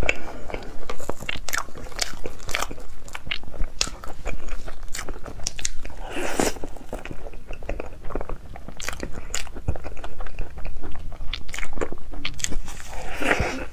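Close-miked eating sounds of colourful crepes being bitten and chewed, with many short sharp mouth clicks. Louder clusters of bites and chewing come about six seconds in and again near the end.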